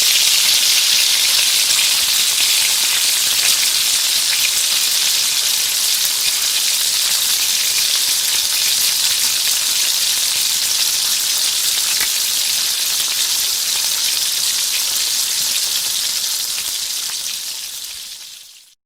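Food frying in hot oil: a steady sizzle with fine crackling and spitting. The sound fades out over the last couple of seconds.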